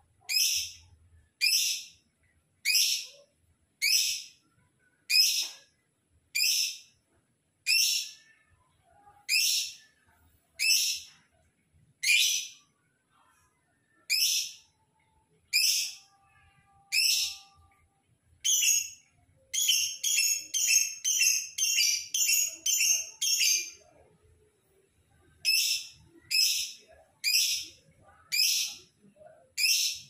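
Lovebird calling: short, high-pitched chirps, one about every second and a half, breaking into a quick run of about a dozen chirps, around four a second, just past the middle, then back to the slower spaced calls.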